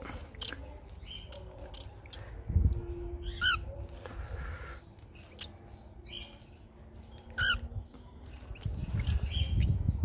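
Cockatiels calling in a cage: scattered short chirps and two brief warbled calls about four seconds apart, with a low thump about two and a half seconds in.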